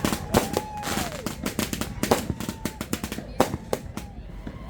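Fireworks and firecrackers going off, a string of sharp bangs at irregular intervals, some louder and some distant, with a faint tone falling in pitch about a second in.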